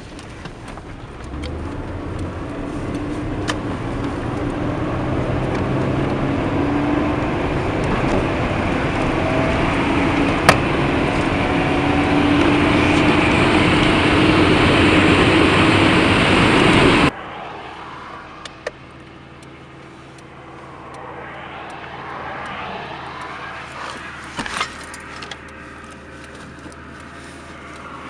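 Nissan Skyline R31 being driven: engine and road noise build steadily louder for about 17 seconds, then break off suddenly to a quieter, steady engine run.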